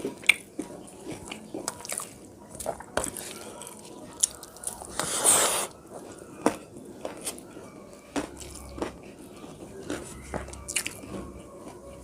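Close-up eating sounds: chewing and crunching fried mola fish with potato and rice, with many short wet mouth clicks and one louder crunch about five seconds in.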